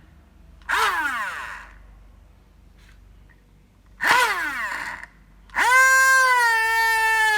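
Homemade mini hand drill's 12 V DC motor whining in two short bursts, each winding down with a falling pitch as it coasts to a stop, then running steadily from a little past halfway with its pitch slowly sinking.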